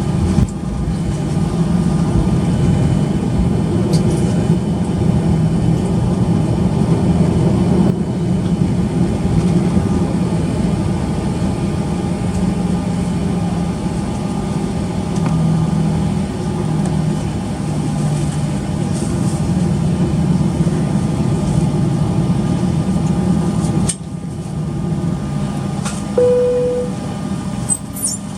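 Boeing 737-800 cabin noise on the ground after landing: a steady low hum from its CFM56-7B engines, with steady tones over the hum. A short single tone sounds near the end.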